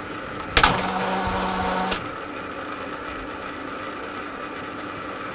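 Metal lathe running a spring cut, a repeat pass at the same setting while screwcutting a multi-start thread. A sharp click about half a second in starts a steady hum with a low tone. A second click about two seconds in drops it to a quieter steady running sound.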